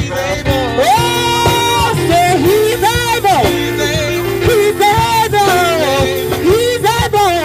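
Live gospel band playing through PA speakers: a singer's wordless runs glide up and down with vibrato over held keyboard chords and drums.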